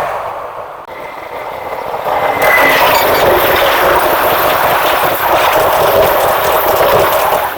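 A train hauled by a D20E diesel-electric locomotive running past at speed, a loud, steady rush of engine and rail noise. It dips about a second in, builds back up, and starts to fade near the end.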